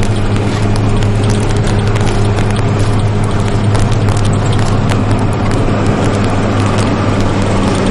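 Cattle truck's engine running steadily with a low hum, heard from inside the cab while driving, with frequent rattles and knocks from the cab over the rough track.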